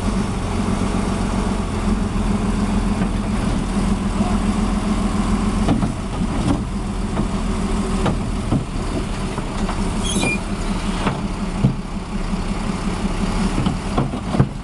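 Heavy vehicle engine running steadily, with a few short knocks and clanks in the second half.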